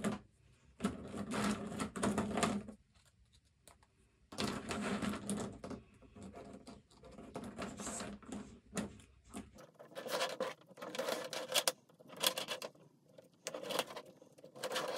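Plastic toy train track sections clattering and clicking as they are handled from a pile and snapped together end to end, in irregular bursts with short pauses.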